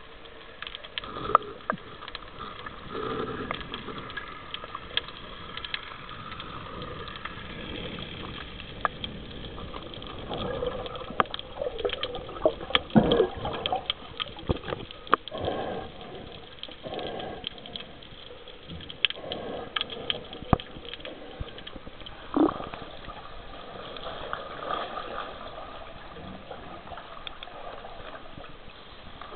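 Water heard underwater: gurgling bubbles and swirling water, with many sharp clicks and knocks scattered throughout, busiest in the middle.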